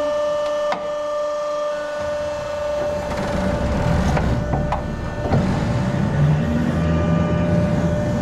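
Overhead hay crane working as its grab lifts a load of hay: a steady high whine from the crane's drive throughout, and from about three seconds in a louder low rumble with a few clunks as it hoists and moves.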